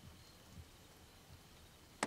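Near silence: faint outdoor ambience with a few soft low thumps.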